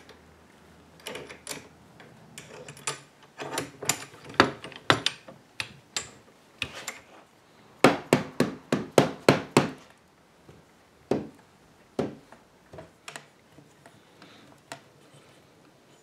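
Hammer blows on the wooden leg and rocker joint of a Shaker rocking chair, driving a freshly glued joint home. The blows come as sharp knocks in irregular groups, with a quick run of about four a second in the middle, then a few single taps that thin out toward the end.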